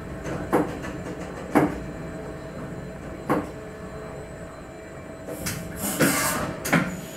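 Electric train of the Grütschalp–Mürren railway rolling slowly into the terminus with a steady hum, its wheels giving a few sharp clanks over the track. A short hiss of air comes near the end as it comes to a stop.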